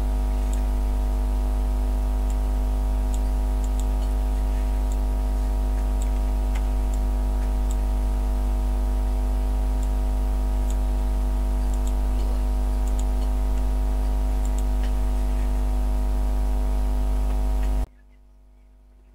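Steady low hum of a running engine held at one speed, with no revving and faint scattered ticks over it. It cuts off abruptly near the end.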